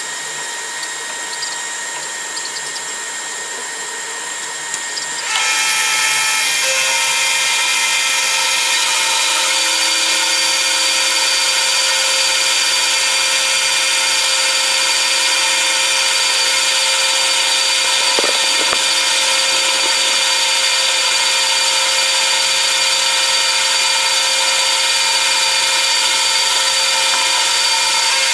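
Power tool running steadily on a metalworking job, a whine of several steady tones. It gets louder and harsher about five seconds in, then holds even.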